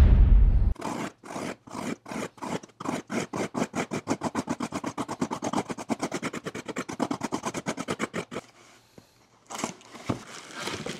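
Utility knife blade sawing through packing tape and corrugated cardboard to open a box, in quick, even back-and-forth strokes of about seven a second. A heavy low bump at the very start, and a few softer rustles of the box near the end.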